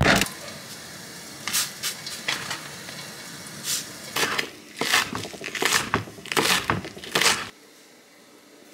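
Kitchen cooking noises: an irregular run of short, sharp crackles and knocks from food and a pan being handled on the hob, with a louder knock at the start. They cut off abruptly about seven and a half seconds in, leaving faint room tone.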